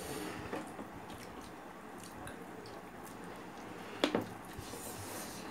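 Close-up wet chewing and biting of a mouthful of rice, dal and goat meat, with small scattered clicks and one sharp click about four seconds in.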